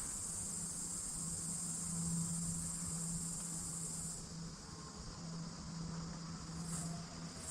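A steady high-pitched insect trill, like a cricket, that cuts off suddenly about four seconds in, over a steady low hum.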